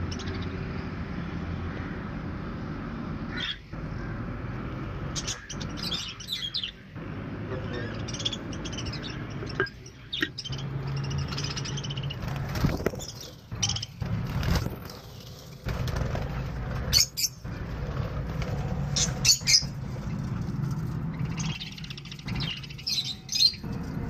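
Budgerigars chirping in short, high, scattered calls, with a steady low rumble underneath.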